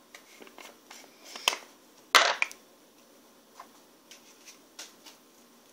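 Makeup items being handled on a table: a run of small clicks, taps and brief scrapes, with a louder clatter about two seconds in.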